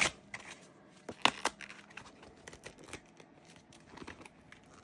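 Support material being peeled and torn away from a flexible-filament 3D-printed shoe by hand: scattered crackles and clicks, with two sharp snaps a little over a second in.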